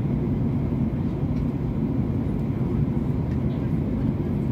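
Cabin noise of a Ryanair Boeing 737 airliner in flight, heard from inside at a window seat: engine and airflow noise making a steady, low, even drone.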